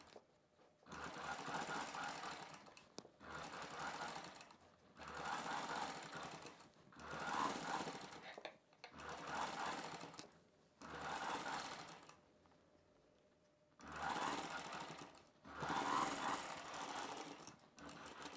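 Domestic straight-stitch sewing machine stitching a seam in about eight short runs of a second or two each, stopping briefly between runs, with a longer pause about two-thirds of the way through.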